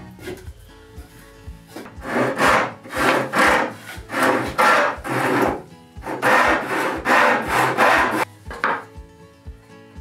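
Hand backsaw cutting into the end grain of an oak desk leg: a quick run of push-and-pull strokes, about two a second, starting a couple of seconds in, with a brief pause in the middle. Faint background music underneath.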